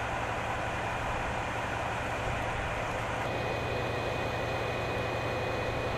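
DB class 215 diesel locomotive running steadily at idle, a constant low rumble. A faint steady high whine joins about three seconds in.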